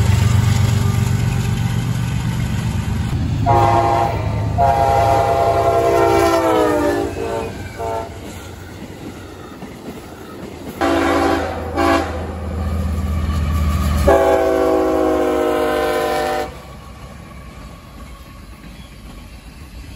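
Diesel freight locomotives rumbling past while sounding multi-chime air horns: a short blast, then a long one that drops in pitch as the train goes by, two short blasts near the middle, and another long blast. The rumble and the horns fall away near the end.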